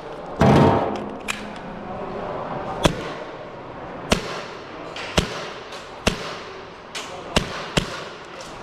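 Gas-blowback airsoft pistol firing single shots at an uneven pace, about eight sharp cracks, with a louder, longer sound just after the start.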